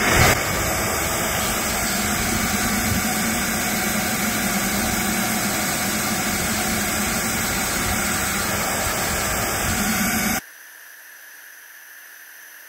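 Wet/dry shop vac motor spinning up and then running at full suction, its hose held over an air conditioner's condensate drain pipe to suck out the clogged line. About ten seconds in, the sound drops suddenly to a much quieter, thinner hiss for a couple of seconds, then comes back.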